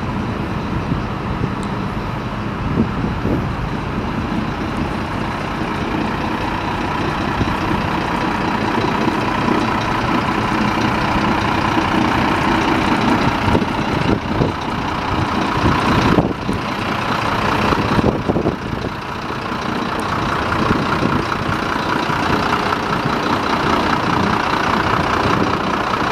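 Volvo FM9.300 truck's 9-litre six-cylinder diesel engine idling steadily.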